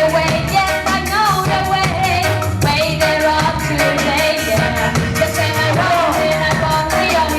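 Reggae sound-system music: a woman singing over a riddim, with heavy bass and a steady drum beat.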